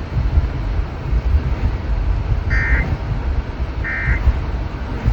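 Two short bursts of Emergency Alert System SAME data tones, about a second and a half apart: the end-of-message code that signals the alert is over. A steady low rumble runs underneath.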